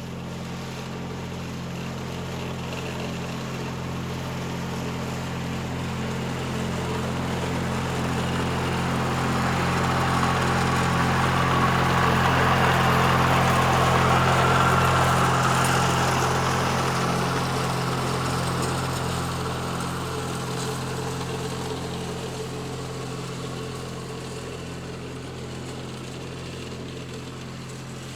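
Lawn mower engine running steadily at a constant speed. It grows louder to a peak about halfway through, then fades back down.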